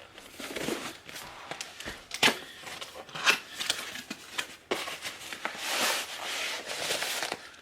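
Packaging being handled and opened: rustling with several sharp clicks and knocks, and a longer rustle near the end.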